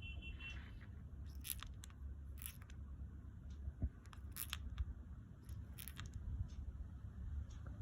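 Lovebirds making soft sleepy sounds: short, faint, scratchy rasps every second or two, with a brief chirp at the very start, over a steady low hum.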